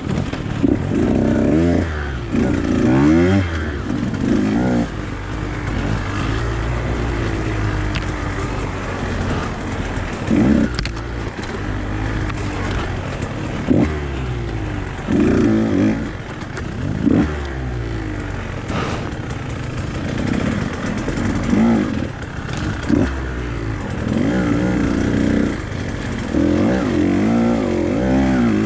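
Husqvarna TE150 single-cylinder two-stroke dirt bike engine revving up and falling back over and over, its pitch climbing and dropping every second or two as it is ridden hard along trail.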